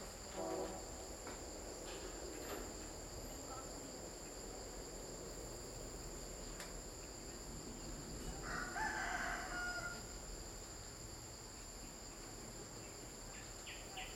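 High, steady insect drone. Over it comes a short animal call about half a second in, then a louder, drawn-out call lasting about a second, some eight and a half seconds in.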